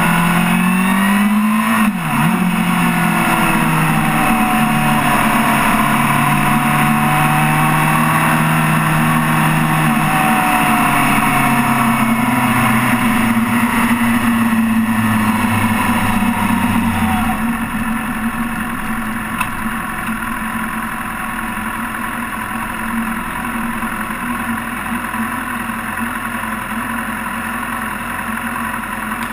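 Suzuki sportbike engine running hard at highway speed under steady wind noise, with a quick dip and rise in engine pitch about two seconds in as the rider shifts gear. About 17 seconds in the engine note drops away and the sound gets quieter as the bike rolls off the throttle and slows.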